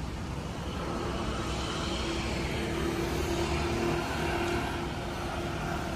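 Street traffic at a city intersection: cars running and passing close by, with a steady engine drone through the middle.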